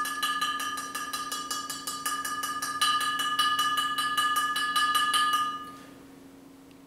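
A 40-ounce glass bottle tapped in rapid, even taps, ringing steadily at a few fixed pitches; the tapping stops about five and a half seconds in.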